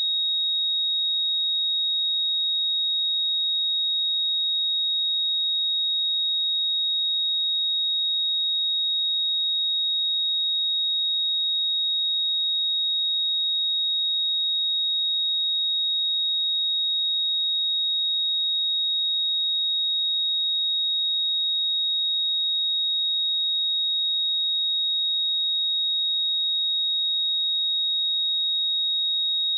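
A steady, unbroken 3767 Hz sine-wave test tone: a single high-pitched pure tone at constant loudness.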